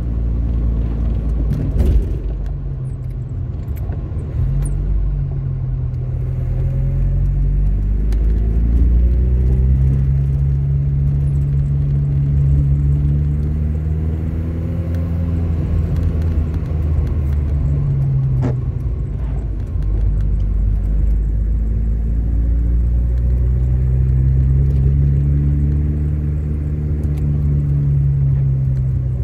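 Ford Capri 1.6S's four-cylinder engine heard from inside the cabin while driving: its note climbs, drops back, and climbs again several times over a steady low rumble.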